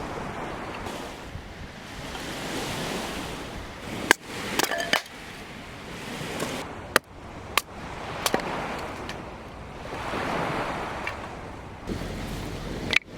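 A rushing wash of noise that swells and fades twice, with a handful of sharp clicks and clinks between about four and eight seconds in.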